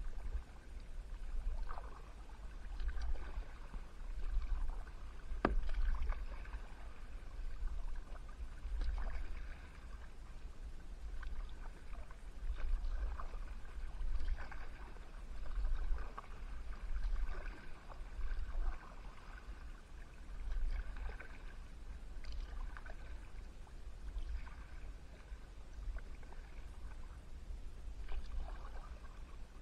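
Kayak paddle strokes in calm water, a splash and drip about every second or so, with one sharp knock about five seconds in. A steady low rumble lies underneath.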